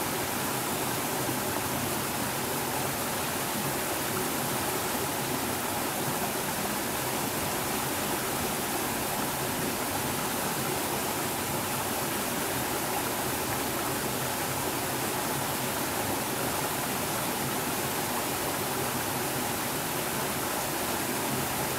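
Small mountain stream spilling over a low rocky cascade into a pool: a steady, even rush of flowing water.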